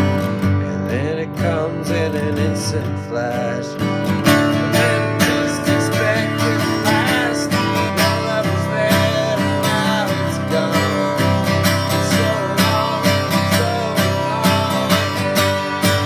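Music: acoustic guitar strummed in a steady rhythm in a country style.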